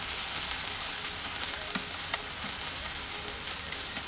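Thin strips of sirloin steak sizzling steadily as they sear in hot oil over medium-high heat, with a few faint clicks of metal tongs turning the pieces.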